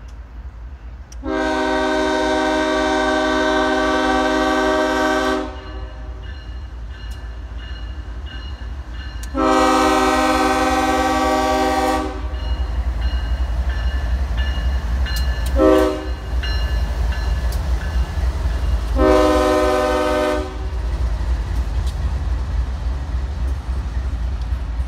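BNSF diesel locomotive's air horn sounding the grade-crossing signal, long, long, short, long, as a double-stack intermodal freight train approaches. The low rumble of the locomotives' engines and wheels grows louder after the second blast as they pass.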